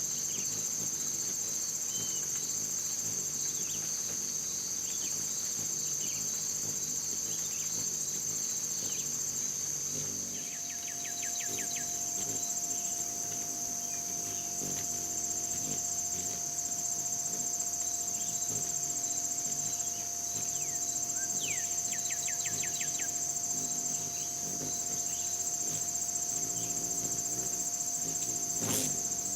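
Steady, high-pitched chorus of insects with a fast, even pulse, the kind made by crickets on a summer evening. A short run of quick, high, falling chirps cuts in about a third of the way through and again about two-thirds through.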